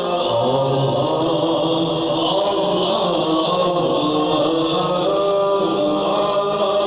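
Many men's voices chanting together at a devotional gathering, holding long, overlapping notes in a steady, loud blend.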